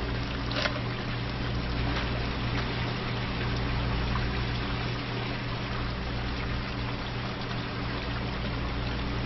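Steady rushing noise like running water, with a low steady hum underneath and a faint click about half a second in.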